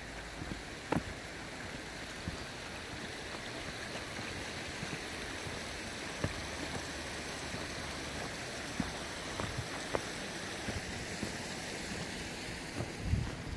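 Steady rushing of running stream water, with a few faint knocks scattered through.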